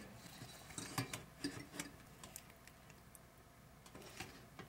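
Cheesecloth full of strained Greek yogurt being handled and lifted out of a stainless-steel mesh strainer over a pot: faint rustling with scattered light clicks and taps, most of them in the first two seconds.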